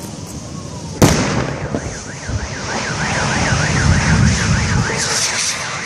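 A gas cylinder explodes with a single loud bang about a second in, followed by the low rumble of the fire. A car alarm then warbles rapidly up and down, and a high hiss rises near the end.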